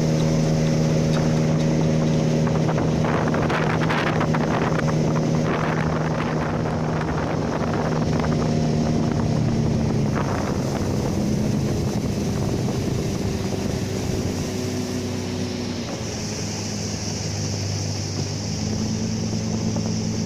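Motorboat engine running steadily as the boat crosses open water. Its note drops about ten seconds in and again lower near the end, as the boat throttles back on its approach to shore.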